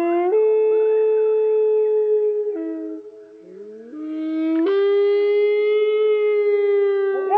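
Loon wail call played back slowed down, lowered in pitch: two long, mournful calls, each sliding upward, stepping up to a higher note and holding it for a couple of seconds.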